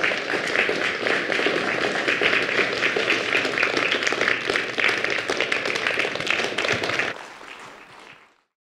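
Audience applauding: dense, steady clapping that drops off sharply about seven seconds in and fades out a second later.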